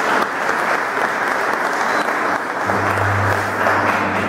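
Audience applauding, a dense clapping that stays even throughout. About two-thirds of the way in, a low steady hum comes in under it.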